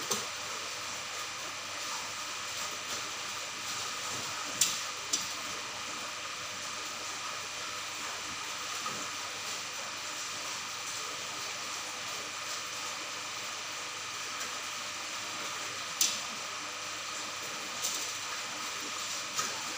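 Steady hiss and faint hum of running aquarium equipment, with a handful of short sharp clicks scattered through.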